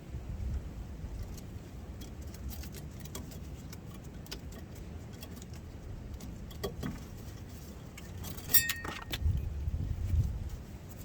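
Light metal clicks and clinks from tools and brake parts being handled. About eight and a half seconds in comes a sharper metallic clink that rings briefly.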